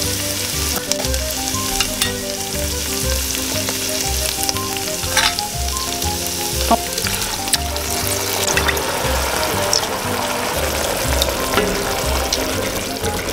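Chopped onion and garlic sizzling in hot oil in a pot: a steady frying hiss with scattered clicks and scrapes from a wooden spatula stirring them.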